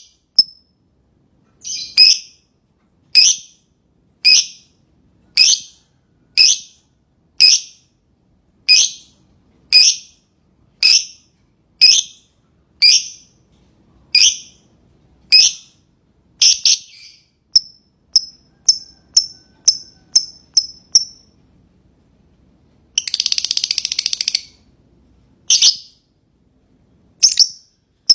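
Lovebird calling: loud, sharp, downward-sliding chirps about once a second, then shorter, quicker chirps. About three-quarters of the way in comes a dense burst of rapid chatter, the lovebird's 'ngekek', followed by a few more chirps near the end.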